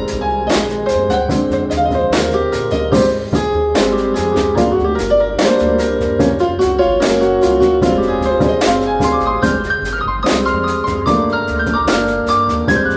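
Live jazz trio playing an instrumental passage: piano running lines over drum kit with frequent cymbal strokes and a low bass line.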